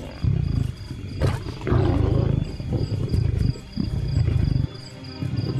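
Lions growling over a zebra kill in repeated low rumbling bouts, which stop about four and a half seconds in.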